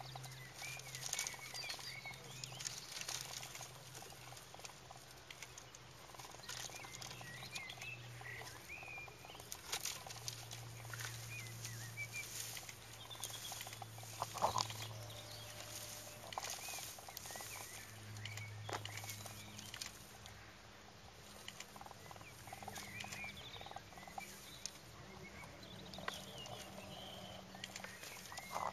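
Quiet outdoor ambience: small birds chirping on and off, with scattered light taps and rustles and a low steady hum underneath.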